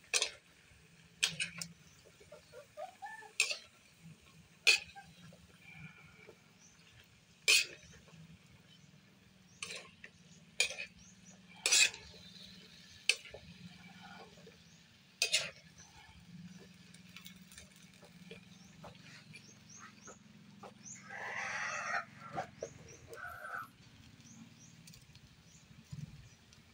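Metal ladle clinking and scraping against a steel wok as vegetables are stir-fried, a dozen or so sharp separate clinks over the first half. About 21 seconds in, a louder, noisier sound lasting about a second and a half from an unseen source.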